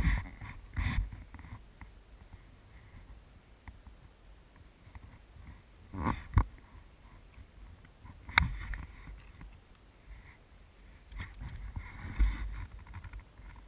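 Action camera being handled, with a few knocks and rubs: two close together about six seconds in, another about two seconds later, and a rougher scuffle near the end. Under them is a low rumble of wind on the microphone.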